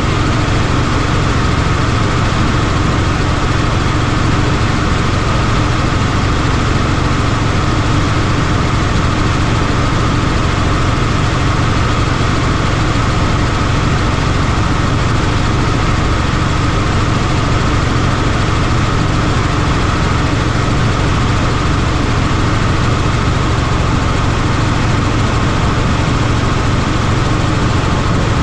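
Helicopter engine and rotor noise, loud and steady, with a strong low hum that does not change.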